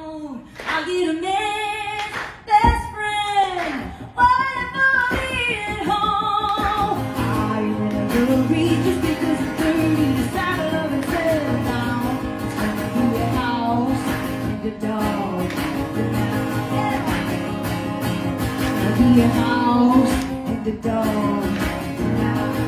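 A woman singing live to her own acoustic guitar. For the first few seconds the voice is almost alone, with two sharp thumps, and from about seven seconds in steady guitar strumming runs under the singing.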